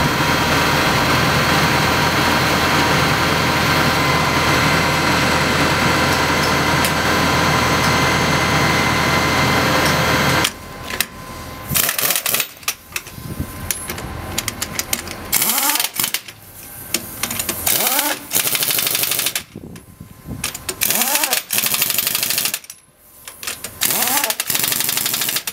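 A heavy engine runs steadily for about ten seconds, then stops suddenly. After that a pneumatic impact wrench works the nuts of a truck's rear wheel in a series of short rattling bursts with pauses between them, some bursts rising in pitch as the wrench spins up.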